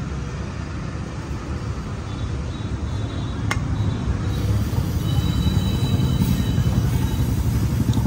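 Steady low mechanical rumble, like a motor running, that grows louder about four to five seconds in, with a faint high whine over it.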